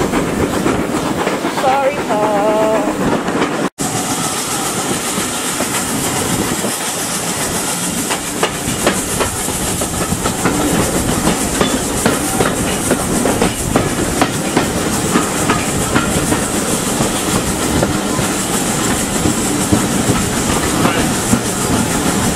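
Passenger coaches rolling past close by, their wheels clicking over the rail joints in a steady clickety-clack over a continuous rumble.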